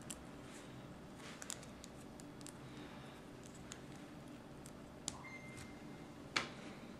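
Faint clicks and taps of small plastic LEGO pieces handled in the fingers as a blue plate is worked off a black brick, with a sharper click about six seconds in.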